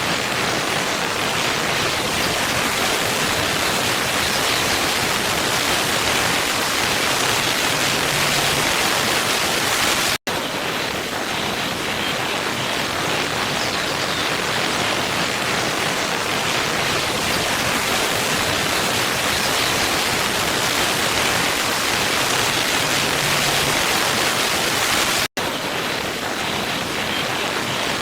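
Waterfall: a steady, full rush of falling water that cuts out for an instant twice, about 10 seconds and 25 seconds in.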